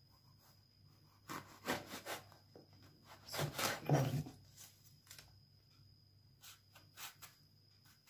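Kitchen knife slicing lengthwise through a long green brinjal on a plastic cutting board: scraping cuts and light knocks of the blade on the board. They come in two bursts, about a second in and about three and a half seconds in, with a few faint taps later.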